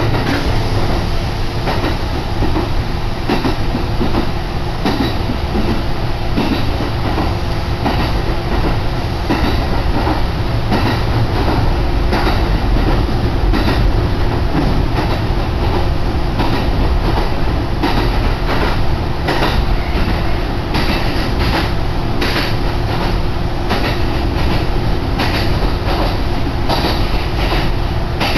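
A Kintetsu Yunoyama Line electric train running, heard inside the carriage: a steady low rumble with the clickety-clack of wheels over rail joints, the clicks coming more often in the second half.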